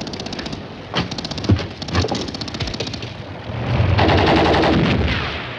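Battle gunfire: a rapid machine-gun burst at the start, then scattered single shots, and about three and a half seconds in a louder rushing noise that swells and fades.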